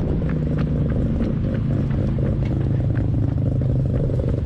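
Mazda RX-7's twin-rotor Wankel engine idling with a steady brap, its pitch settling slightly lower about a second and a half in, with scattered light ticks.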